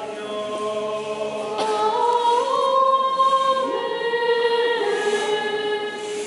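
Women's choir singing unaccompanied Armenian liturgical chant, holding long notes that step to new pitches several times, with the phrase ending near the end.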